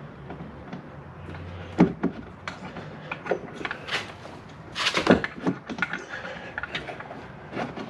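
Irregular knocks and clicks of bolts and ladder-bracket hardware being worked by hand into the plastic stern of a Sea-Doo jet ski, the loudest cluster about five seconds in.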